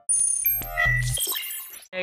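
A short edited-in chime sound effect: bright, bell-like ringing tones and dings, lasting a little under two seconds and then cutting off.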